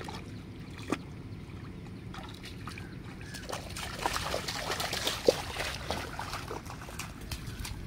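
Bare feet wading through shallow muddy water, small splashes and sloshes that come quicker and thicker in the middle.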